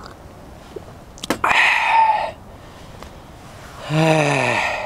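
A man slurps a sip of hot sake from a glass cup, a short hissing slurp with a couple of clicks just before it, then lets out a long falling "aah" of satisfaction near the end.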